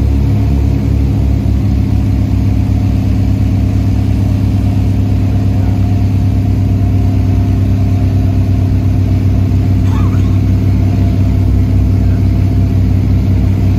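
The two piston engines and propellers of a Britten-Norman Islander heard from inside the cabin, a steady loud drone with a pulsing propeller beat as the aircraft flies its landing approach.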